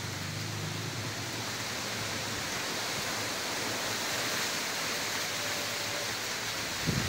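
Strong wind blowing steadily through banana plants and trees: a constant, even rushing hiss.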